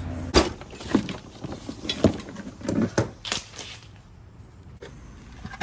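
The car's idling engine stops, followed by a series of knocks, clunks and rustles from someone moving about and handling things in the car. The knocks come in a burst over the first three seconds or so, then it goes quieter.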